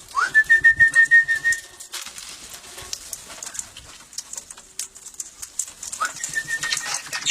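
A high whistled call that slides up and then holds steady for about a second and a half, heard again shorter near the end, with faint light clicks and taps between.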